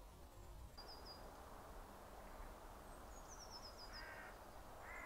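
Faint outdoor woodland ambience with a crow cawing twice near the end. Earlier come a small bird's high chirps, one of them a quick falling run of notes.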